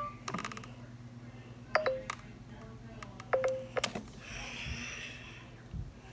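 Short electronic beeps, each sharing a sharp click, in three groups about two seconds apart over a steady low hum.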